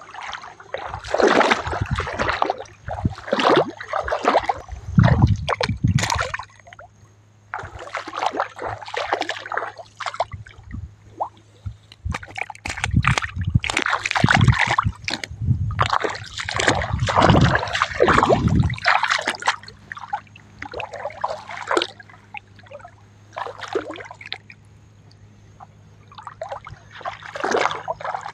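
Water splashing and sloshing in irregular surges, with short lulls between them, over a steady low hum.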